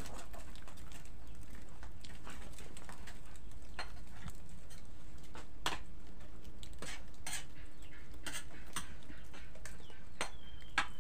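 Metal utensil clinking and scraping against a steel wok as vegetable stew is stirred, in scattered, irregular clinks.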